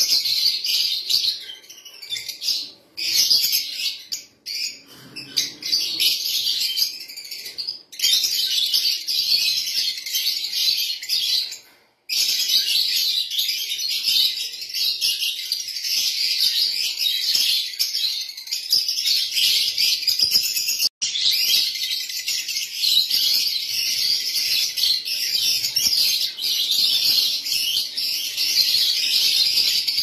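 Lovebirds chattering and chirping densely, many at once, in a continuous high-pitched twitter. The sound cuts out abruptly for a moment about three times.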